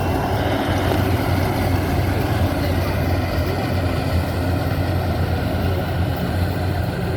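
Maxxi Bimo 102 rice combine harvester running steadily, a continuous low engine drone mixed with the noise of its machinery.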